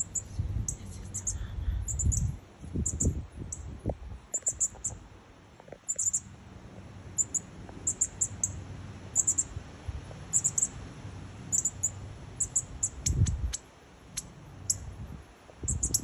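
Northern cardinal nestlings chirping: short, very high calls in quick clusters, repeated about once a second, with low rumbles of handling or wind on the microphone.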